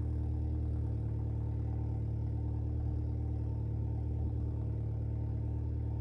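Opel Corsa OPC's 1.6-litre turbocharged four-cylinder engine idling steadily through a straight-piped exhaust with the rear muffler deleted, a deep, even drone.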